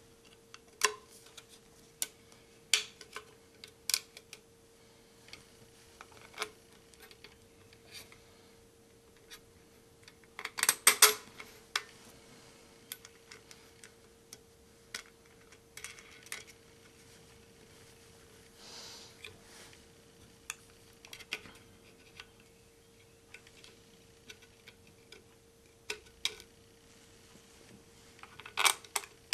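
Scattered clicks and light knocks of PVC pipe fittings, a bolt, a wing nut and a saw blade being handled and fitted together while a buck saw is assembled. There is a louder cluster of clatter about eleven seconds in and again near the end, over a faint steady hum.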